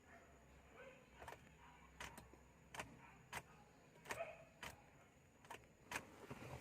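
Faint, irregular clicks and light knocks, about a dozen spread over several seconds.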